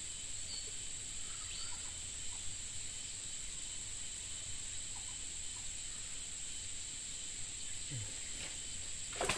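Steady high-pitched drone of insects in tropical forest, with a few faint bird chirps and a low rumble underneath. A short burst of noise comes just before the end.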